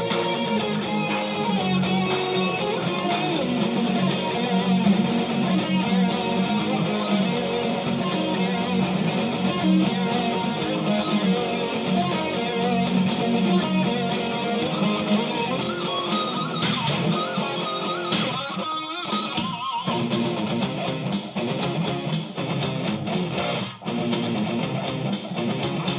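Music led by strummed guitars, with a full band behind them.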